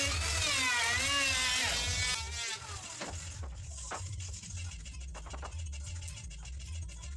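Handheld electric wood router whining as it cuts along the edge of a plank, its pitch dipping and rising under load, then stopping about two seconds in. After that come a few sharp wooden knocks as planks are laid out.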